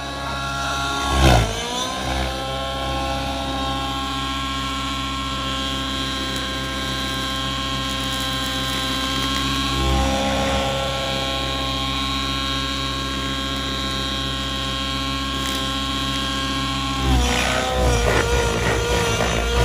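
Nitro-fuelled RC model helicopter's engine and rotor running at high speed, a steady high whine whose pitch dips and recovers about a second in. Near the end the sound turns uneven and a little louder.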